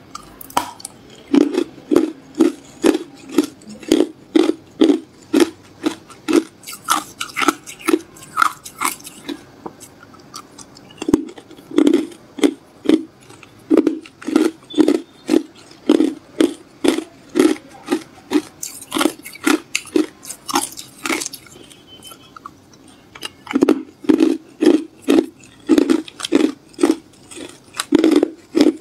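Hard clear ice cubes being bitten and chewed, a fast, steady run of loud crunches about two a second, broken by two short pauses.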